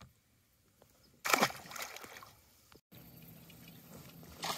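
A bass released over the side of a boat splashes into the lake about a second in, the splash trailing off into water noise. After a cut, a faint steady hum with light water noise.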